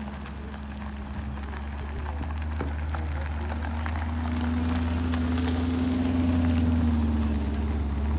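C8 Corvette's V8 running at low revs as the car drives slowly past, growing louder as it comes close, with tyre hiss on wet tarmac.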